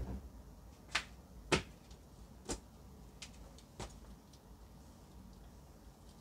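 Short, sharp clacks of plastic clothes hangers knocking together as laundry is handled and hung, four in the first four seconds, the loudest about a second and a half in.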